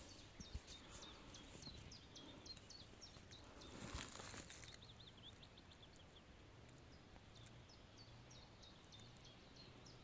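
Faint outdoor ambience with small birds chirping again and again in short, high, downward-sliding notes. A brief rustle comes about four seconds in.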